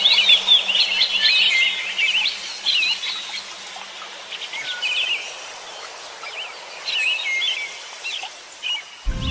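Birds chirping and singing in quick trilled and whistled phrases, over a steady hiss. Music comes in just before the end.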